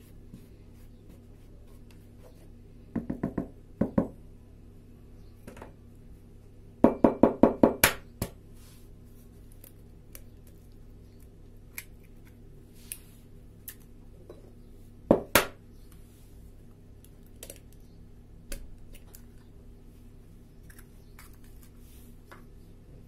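Clusters of sharp taps and knocks on a plastic mixing bowl, with faint scraping, as flour is stirred with a spatula and eggs are cracked into it. A few knocks come about three seconds in, a quick run of about six near seven seconds, and a pair near fifteen seconds. A steady low hum runs underneath.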